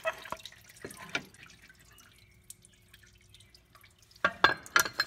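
Engine coolant dripping into a baking sheet: scattered drops, then a quick run of louder drips about four seconds in.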